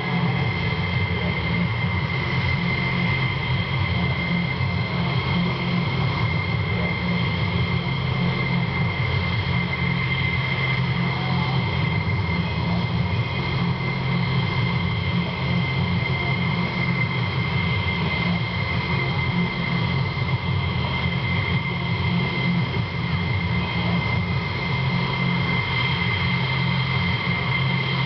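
F-16 fighter jet engines idling on the flight line: a steady high turbine whine over a low rumble.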